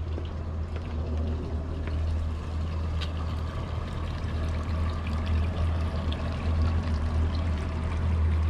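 Boat engine idling steadily, a deep even hum, with water splashing faintly around the hull.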